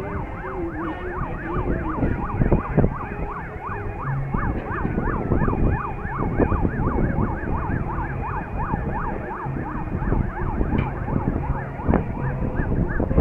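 Several sirens yelping at once, each pitch swinging rapidly up and down about three times a second, over a low rumbling background.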